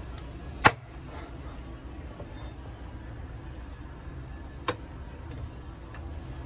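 Knife chopping through a mackerel onto a wooden cutting board: one sharp chop under a second in, and a lighter knock a little before five seconds, over a steady low background rumble.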